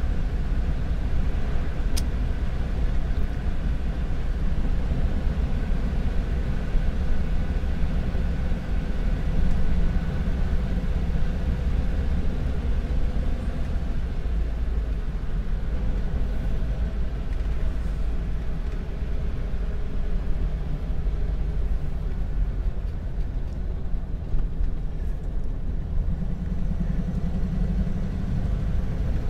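An old Ford with a double-clutched manual gearbox, running steadily at cruising speed with road noise. There is one sharp click about two seconds in.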